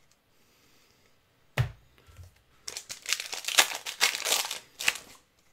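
A single thump about one and a half seconds in, then the foil wrapper of a Pokémon booster pack crinkling and tearing open for about two seconds.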